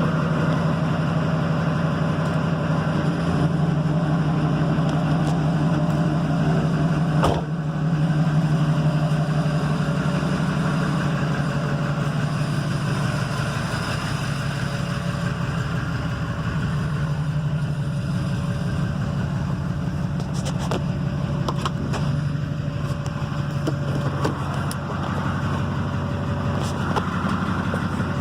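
Duramax LBZ 6.6-litre V8 turbo-diesel in a 2006 pickup idling steadily with an even diesel clatter. A single sharp click sounds about seven seconds in.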